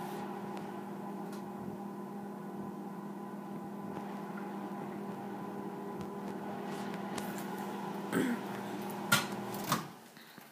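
Microwave oven running with a steady hum while melting butter. A few sharp clicks near the end, and then the hum stops.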